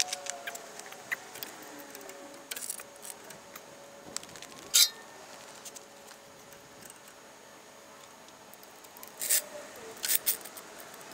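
Sharp metallic clicks and clanks of a floor jack and steel jack stands being worked as a car is let down off the stands: a scattering of knocks, the loudest about five seconds in and a cluster near the end.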